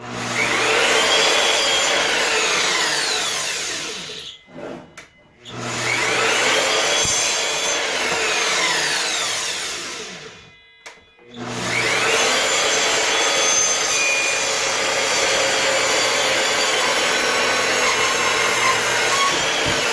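A woodworking power tool running and cutting into wood in three separate runs, its motor whine rising quickly at the start of each and then sliding slowly down in pitch.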